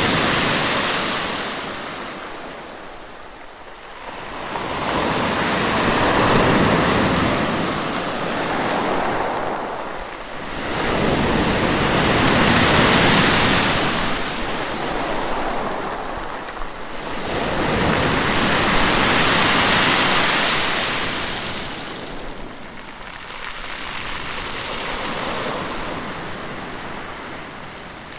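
Sea waves surging and washing back, each wave swelling and fading about every six to seven seconds, five times over.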